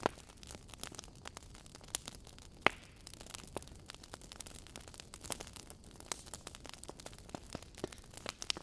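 Wood fire in a fireplace, logs crackling with irregular sharp pops over a soft steady hiss, one pop louder than the rest a little under three seconds in.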